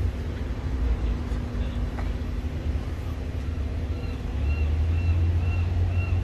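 Steady low rumble of street traffic, with a heavy vehicle's engine running close by. From about four seconds in, a faint high chirp repeats roughly twice a second.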